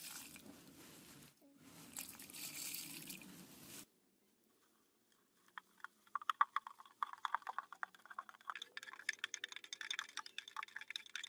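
White granules poured from a plastic bag into water in a stainless steel bucket, a hissing pour in two spells lasting about four seconds. After a short pause a flat stick stirs the mix, with rapid clicks and scrapes as it grinds the undissolved granules against the steel sides.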